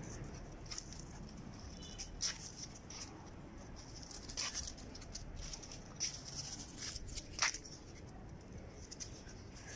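Two dogs playing on paving: faint, scattered short scuffs and rustles from their paws and movement, the sharpest about seven and a half seconds in.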